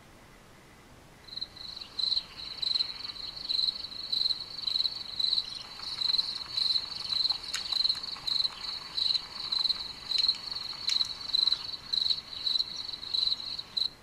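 Crickets chirping steadily at about two chirps a second, a night-ambience recording played by a relaxing-nature-sounds app. The chirping starts about a second in and cuts off suddenly at the end, with a few faint clicks among it.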